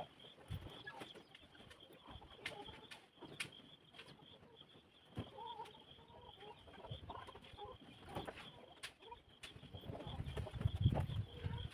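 Laying hens clucking in short, scattered calls over a steady high-pitched whine, with a few sharp clicks. Near the end there is a louder low rumbling of handling noise.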